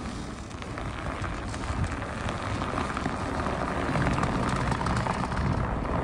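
Pickup truck straining to tow a heavily loaded trailer through deep snow: its engine working and its tyres churning. A steady rushing noise that grows a little louder.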